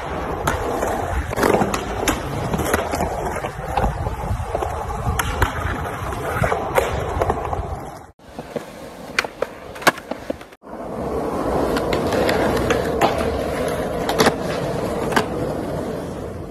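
Skateboard wheels rolling on concrete, with sharp wooden clacks of the board being popped and landing on tricks. The rolling cuts off abruptly twice, and a short quieter stretch between the two cuts holds only a few separate clacks.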